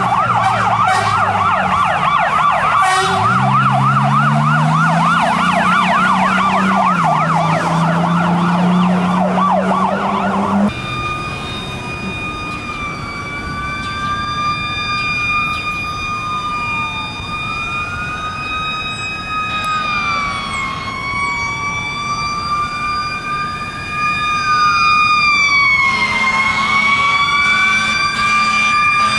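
Emergency vehicle sirens passing on a road. A fast electronic yelp runs over an engine revving up underneath until it cuts off about a third of the way in. After that a slower wail rises and falls every few seconds over a steady high tone. Near the end a louder, lower-pitched tone joins as a fire engine approaches.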